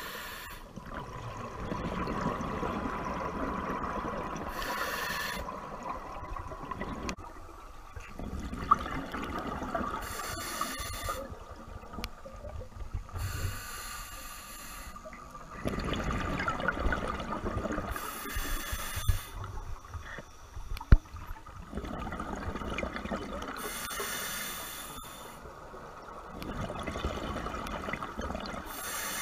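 Scuba diver breathing underwater through a regulator: bursts of exhaled bubbles about every four to five seconds, with a quieter hiss of inhaling between them. A couple of sharp clicks stand out, one near the middle.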